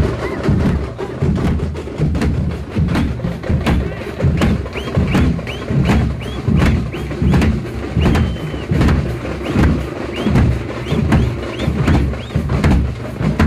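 Large double-headed bass drums beaten hard in a fast, steady rhythm, deep booming thumps mixed with sharp cracking stick strikes. Short high rising tones repeat along with the beat through the middle stretch.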